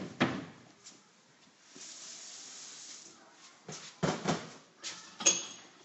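A series of knocks and clatters in a kitchen, typical of cupboard doors or drawers being shut, with a hiss of about a second and a half in the middle and a short high squeak near the end.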